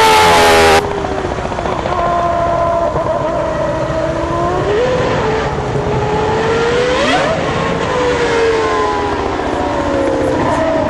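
Loud music cuts off suddenly under a second in, leaving a Red Bull Racing Formula One car's engine running, its pitch rising and falling with the revs and gear changes. There is a sharp rev up and drop about seven seconds in.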